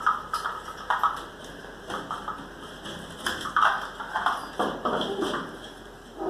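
Irregular plastic clicks and knocks as a small recessed spotlight and its wiring are handled and pushed up into a round hole cut in a drywall ceiling.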